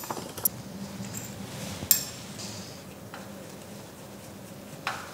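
Metal clicks and clinks from a drill bit being swapped in a keyless drill chuck on a wood lathe's tailstock: a handful of separate sharp taps, the loudest about two seconds in.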